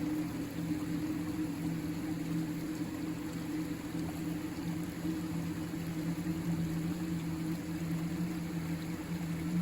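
River water rushing steadily, an even rush with a low rumble underneath.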